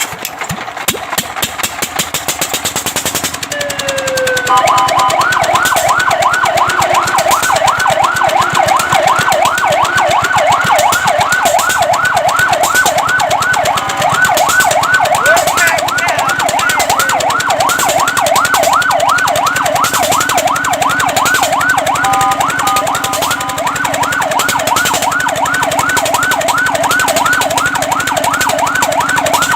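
Fire truck siren in a fast yelp, its pitch sweeping up and down several times a second. It comes in about four and a half seconds in, after a few seconds of fast, even mechanical clatter.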